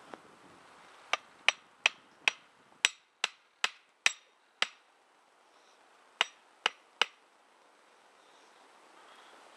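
A wooden stake being hammered into the ground with sharp knocks: about ten in quick succession, then three more after a short pause.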